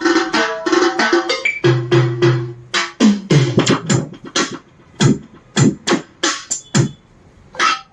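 Roland SPD-20 Pro electronic percussion pad sounds: a busy drum pattern with pitched bass notes for about three seconds, then a run of single struck percussion sounds whose pitch drops quickly after each hit, with one last hit near the end.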